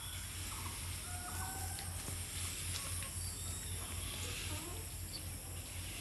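Rural outdoor ambience: a steady high insect drone with a few short bird chirps scattered through it, over a low hum that pulses evenly a few times a second.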